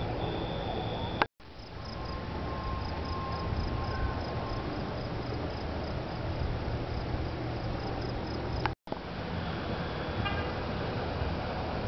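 Steady background noise with a thin high tone running through it. It cuts out abruptly twice, a little over a second in and again near nine seconds, as if spliced.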